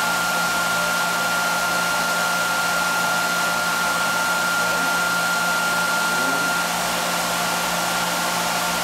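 Electric motor of a motor-generator test rig running steadily, a whirring with a low hum and a high whine that cuts out about six and a half seconds in.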